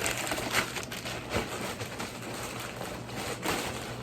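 Handling noise of plastic toy packaging: a soft rustle with a few light clicks and crinkles.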